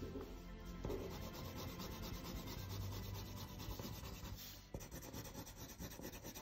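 Coloured pencil rubbing on drawing paper in repeated shading strokes while hair is coloured in. The strokes become shorter and more separate for roughly the last second and a half.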